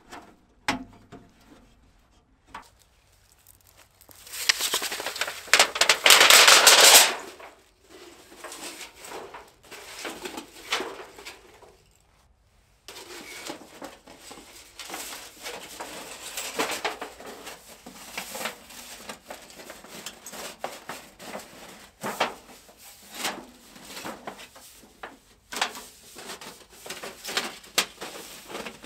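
Thin titanium stovepipe sheet being handled: sliding, rustling metal with scattered sharp clicks, and a loud rushing scrape lasting about three seconds, a few seconds in.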